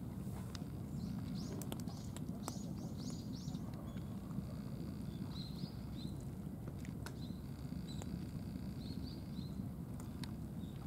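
Cats crunching dry kibble from bowls, heard as scattered sharp crunches over a steady low background rumble. Small birds chirp in quick series of short, high calls.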